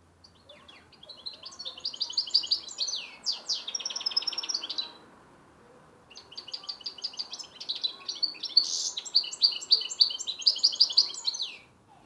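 Goldfinch (Carduelis carduelis parva) × canary mule singing, a bird still learning its song: two long phrases of rapid high trills and twittering notes, with a pause of about a second about halfway through.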